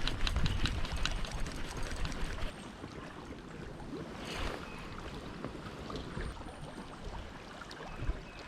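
River water flowing and splashing around a raft, with a run of small knocks and clicks and a low rumble for the first two seconds or so, then a steadier wash of water with a short swish midway.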